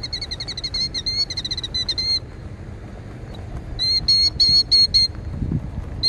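Killdeer giving rapid, high trilled alarm calls: a run of quick repeated notes for about two seconds, then another about four seconds in. This is the agitated call of a parent bird defending its ground nest during a broken-wing distraction display.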